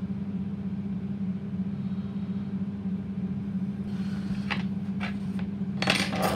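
Steady low hum of a small motor running, with a few light clicks and knocks of small plastic parts being handled on the workbench about four seconds in, and a short, louder burst of noise near the end.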